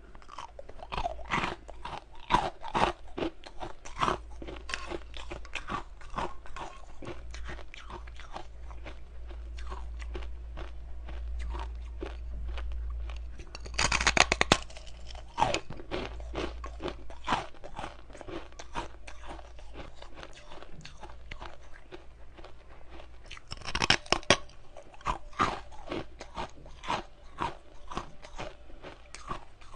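Ice being bitten and chewed close to the microphone: a continuous run of crisp crunches, with two louder bouts of crunching about halfway through and again later on, over a low hum.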